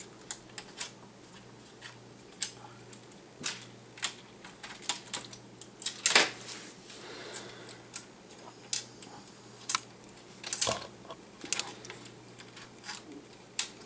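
Irregular light clicks and taps of small plastic and metal tablet-computer parts and cables being handled and fitted by hand, with a louder clack about six seconds in and another about ten and a half seconds in.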